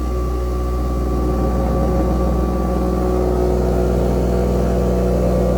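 Loud, steady droning hum with a deep low rumble from the plumbing in the wall after a basement toilet is flushed, sounding like a plane taking off. The plumbing company says it may be normal.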